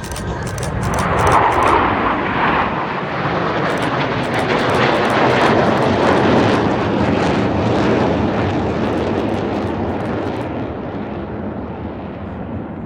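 An airplane flying past at an airshow. The engine noise swells quickly, stays loud for several seconds, then slowly fades away.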